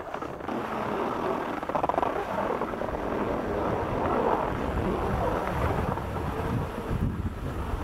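Wind buffeting the microphone over a steady rush of skis sliding on groomed snow while moving downhill.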